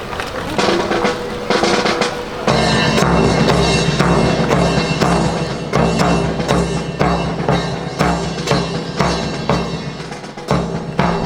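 Drum-led music kicks in about two and a half seconds in, with a heavy bass drum and snare keeping an even beat of about two strikes a second.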